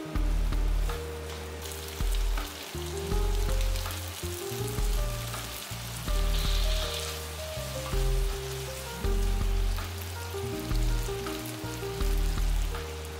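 Shell-on prawns frying and sizzling in spicy sauce in a hot non-stick wok as a spatula turns them. Background music with a steady bass beat plays over the sizzle and is the loudest sound.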